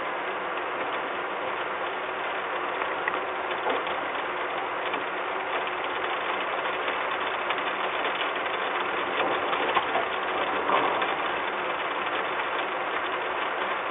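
Steady rain hiss with drops ticking irregularly on the nest box and camera housing, a few ticks a little louder about ten seconds in.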